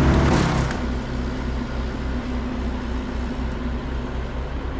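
Heavy-equipment diesel engine running steadily with a low, pulsing rumble; a louder rush of noise in the first second dies away, leaving the engine.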